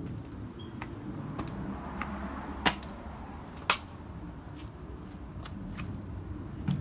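Two sharp clicks about a second apart, with a few fainter ticks, over a low steady rumble.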